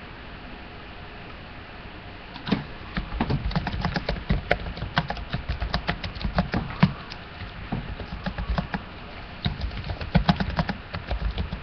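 Fast, irregular clicking and tapping on a computer keyboard in two runs, starting about two and a half seconds in and again near the end, with dull knocks from the desk underneath.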